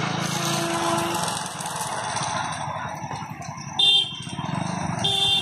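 Train horn sounding short blasts: one brief toot about four seconds in and another starting near the end, over a steady outdoor background hum.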